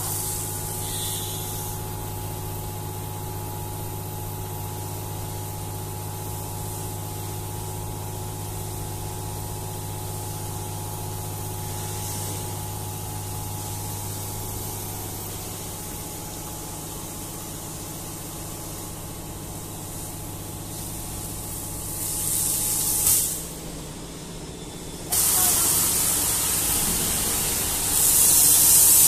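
Self-service car wash machine's high-pressure pump running with a steady low hum. Near the end the spray gun opens and a high-pressure jet hisses loudly onto the wet concrete floor, louder still in the last second or so.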